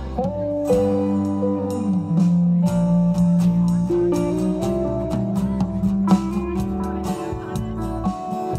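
Live band playing an instrumental passage between sung verses, led by guitar, with sustained and bent notes over a steady accompaniment.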